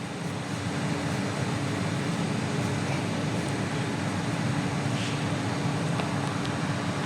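Air-conditioning regas machine running, a steady hum with one constant tone, with a few faint clicks about three and five seconds in.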